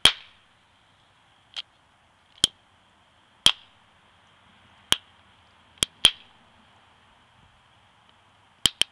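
Hydroxy (oxyhydrogen) gas bubbles from a stainless steel plate electrolysis cell igniting at a lighter flame with sharp pops: about nine separate cracks at irregular intervals, the loudest at the very start, two in quick succession near the end.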